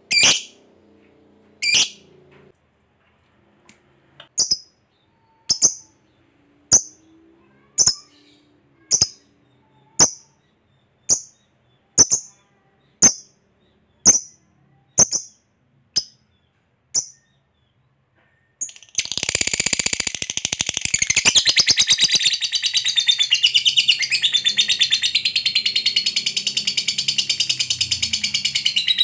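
Lovebird calling with single sharp, high chirps about once a second, then after a short pause breaking into a long, rapid chattering trill: the 'ngekek' song of a lovebird in full voice.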